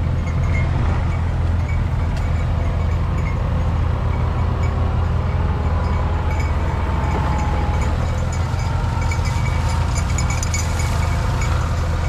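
Diesel farm machinery, a Kubota combine harvester and a small tractor, running steadily in a low, unbroken hum.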